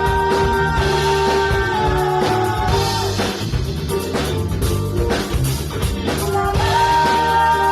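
Funk rock band playing live: drum kit, bass and electric guitars, with long held chords that drop out about three seconds in and come back near the end.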